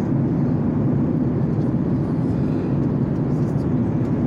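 Steady cabin noise of a jet airliner in cruise: an even, constant low rush of engines and airflow heard from inside the passenger cabin.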